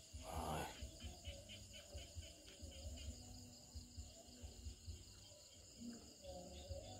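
Faint insect chorus: steady high-pitched trilling, with a chirping pulse about four times a second in the first few seconds. A brief rustle about half a second in.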